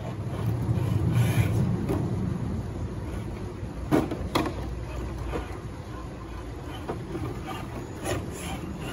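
Traxxas TRX-4 Defender RC crawler's tyres and chassis knocking and scraping on rocks as it climbs, with two sharp knocks about four seconds in and a few lighter ones later, over a steady low rumble that is strongest in the first two seconds.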